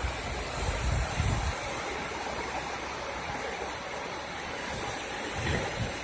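Steady rush of the American River running high and fast with snowmelt floodwater. A low wind rumble on the microphone comes in the first second or so and again near the end.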